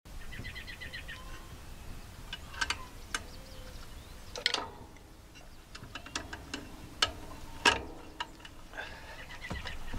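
Wild birds chirping and trilling, with several sharp clicks scattered through and a low wind rumble on the microphone.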